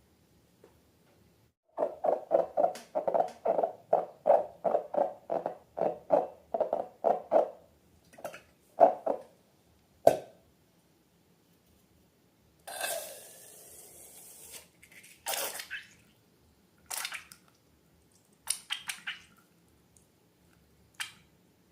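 Wet slime squelching as it is worked by hand: a quick run of rhythmic squelches, about two to three a second, then a few single ones. About halfway through there is a short hiss, followed by scattered squishes.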